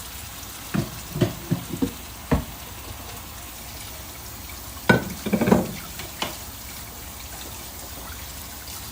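Kitchen noise: a steady hiss with several knocks and clatters of kitchen things, a few about a second in, a louder flurry past the middle and one more a little later.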